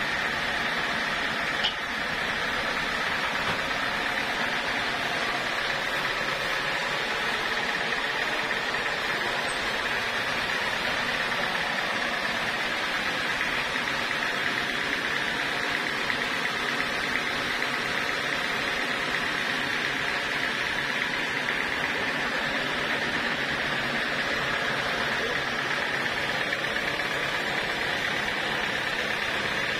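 Band sawmill running steadily with its blade spinning free, not yet in the log: a constant machine noise with a strong high band. A single sharp knock about two seconds in.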